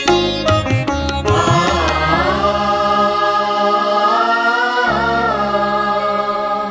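Music from a Marathi devotional song: a short interlude with plucked strings at first, then a held melody line that bends up and down in pitch over a steady drone.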